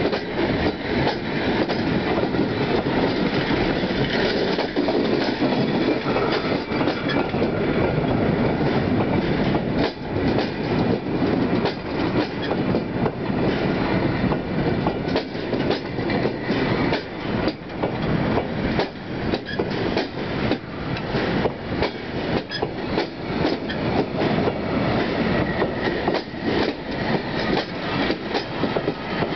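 Vintage passenger coaches of a long train rolling past close by: a steady rumble of steel wheels on the rails with a rapid clatter of clicks as the wheels run over the rail joints.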